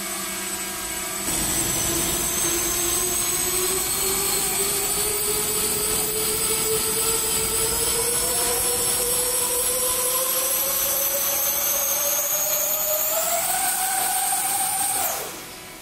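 Electric ducted fans on the blade tips of a model tip-jet helicopter whining as its rotor spins up. The sound starts about a second in and rises steadily in pitch, then drops away quickly near the end as the power is cut.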